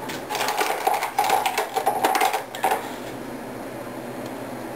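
Dense metallic clicking and scraping of hand tools on the steel parts of a Norinco MAK-90 rifle as a part is tightened during an underfolder stock fitting. It lasts about two and a half seconds and is followed by a steady low hum.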